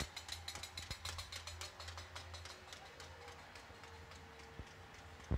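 Many people across the neighbourhood's rooftops clapping and banging on metal plates, heard from a distance as a dense, rapid clatter. The clatter thins out after about three seconds. A single loud knock comes at the very end.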